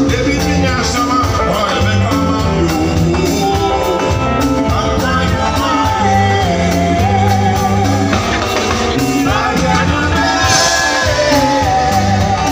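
Live reggae band playing, with a lead vocalist singing over a drum kit, electric bass, electric guitar and keyboard.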